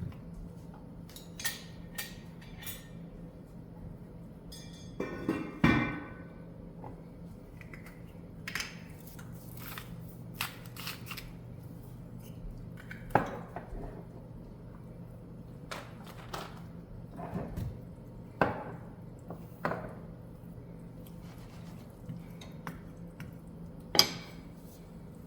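Dishes and kitchen utensils being handled: scattered clinks and knocks, a dozen or so, a few of them sharp, over a steady low hum.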